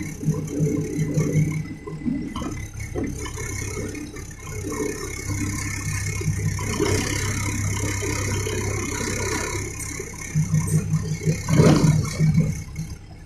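Heavy diesel machinery engine running steadily, with scattered clattering and rattling and a louder surge about three-quarters of the way through.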